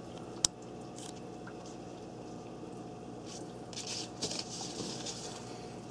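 Faint handling noise of a potted plant in clear plastic wrap: soft crinkles of the plastic around the middle and near the end, with one sharp click about half a second in, over a steady faint hum.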